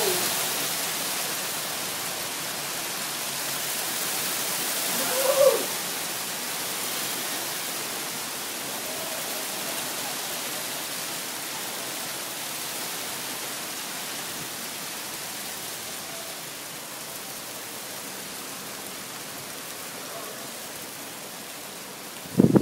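Heavy rain with hail pouring down on the street and surfaces as a steady hiss, slowly easing. A short sliding cry stands out about five seconds in.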